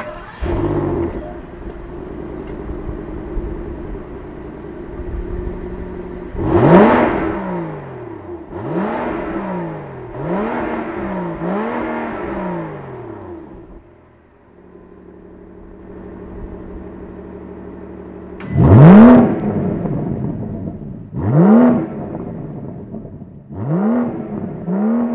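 BMW M760Li's twin-turbo V12 exhaust: the engine fires up with a brief flare and settles into a steady idle. It is then blipped hard eight times in two sets of four, each rev rising and falling back, with a short drop in level between the sets.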